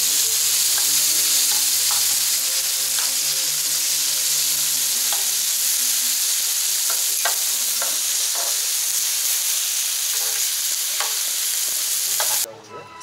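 Beef steak and vegetables sizzling steadily on a hot griddle plate, with scattered clicks as metal tongs turn the food. The sizzling cuts off suddenly near the end.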